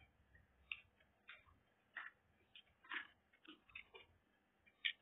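Quiet eating sounds: soft, irregular clicks and smacks of a person chewing food, about seven in five seconds, the sharpest one near the end.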